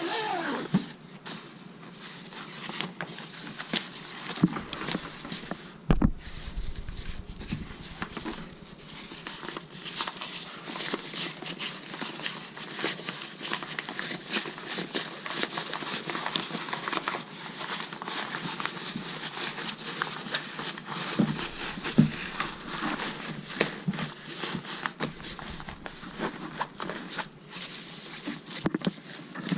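Packaging and a carry-on backpack being handled: continuous rustling and crinkling with scattered small clicks, and a couple of heavier knocks about six seconds in and again near twenty-two seconds.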